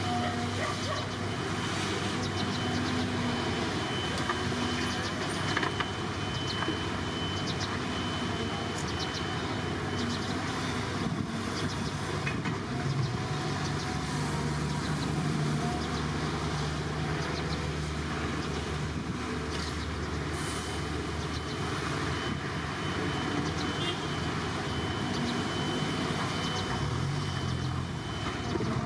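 Diesel engines of heavy earthmoving machinery running continuously, with the engine note climbing for a few seconds about halfway through as a machine works. A thin, steady high whine runs alongside for most of the time.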